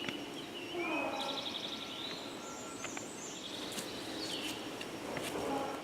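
Quiet spring woodland ambience with several songbirds singing: short trilled phrases and a few whistled notes over a faint background hiss.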